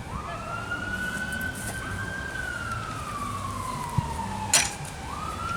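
An emergency vehicle's siren wailing: its pitch climbs at the start, falls slowly over about four seconds, then climbs again near the end. A sharp knock sounds about four and a half seconds in.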